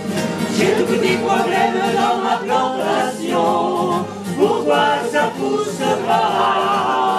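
A mixed group of men's and women's voices singing a French song together in chorus.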